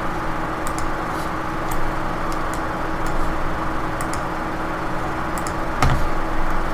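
Computer mouse clicking a few times, faint sharp clicks scattered through, with a sharper click near the end, over a steady background hum and hiss.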